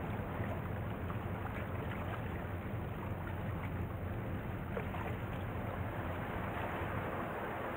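Steady low drone of a boat or ship engine carried across the harbour water, over a faint wash of water.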